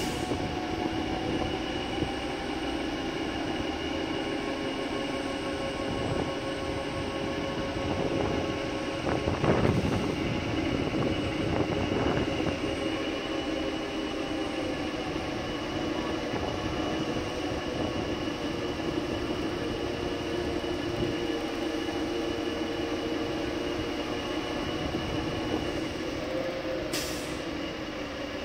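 Truck-mounted mobile crane working as it lowers a steel section: engine and hydraulics running steadily with a whine at several pitches, and one brief louder noise about nine and a half seconds in.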